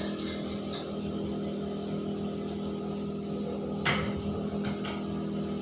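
Steady low electrical or mechanical hum, with one short click about four seconds in.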